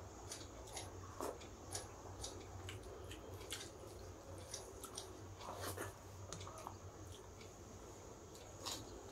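Close-miked eating of rice and curry by hand: soft chewing with scattered wet mouth clicks, and squishing as the rice is mixed with the fingers.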